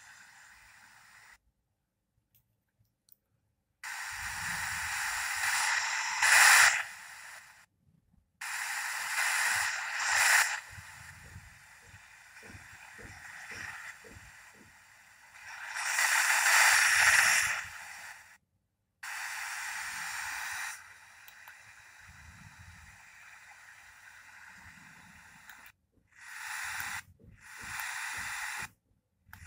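FM static hissing from the speaker of an Onlite L-SS52 pocket radio, tuned between stations. It comes in several bursts that cut in and out abruptly as the frequency or preset changes. Small clicks of the keypad buttons come in between.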